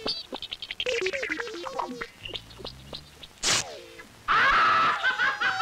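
Comic film background score: a quick run of short staccato notes stepping down in pitch, a sharp crash-like hit about three and a half seconds in, then a sudden louder, fuller burst of music near the end.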